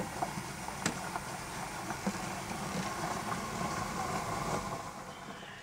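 A pan of meatballs in tomato sauce simmering on a camper van's gas hob while a spoon stirs it: a steady hiss with scattered light clicks and ticks. The sound fades out near the end.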